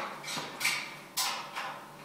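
Three short scraping strokes, each fading quickly, the later ones further apart.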